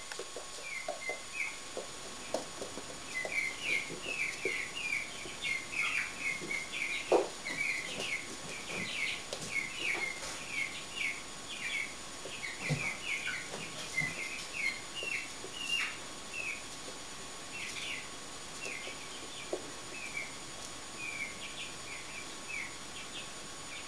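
Chicken chirping: many short, high peeps in quick runs, with a few soft taps as it pecks at a grape on the floor.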